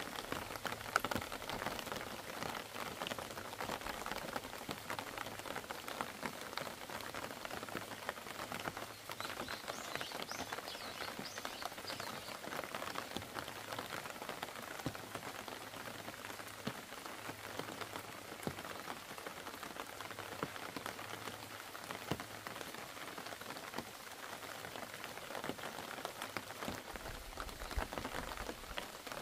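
Steady rain falling, a constant hiss made up of many separate drops ticking.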